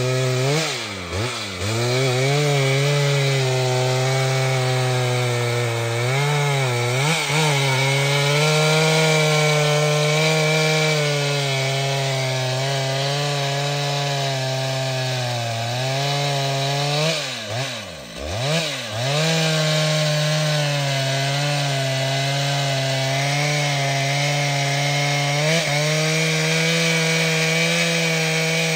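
Large professional two-stroke chainsaw running at high revs, cutting through wood under steady load. The throttle is eased off and opened up again a few times, the pitch dropping and climbing back: briefly about a second in, again around seven seconds, and most deeply about two-thirds of the way through.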